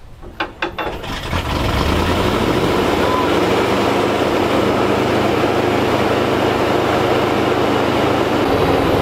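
ZIL-131 army truck's V8 engine being hand-cranked, catching about a second in and picking up into steady running. Its note steps up slightly near the end.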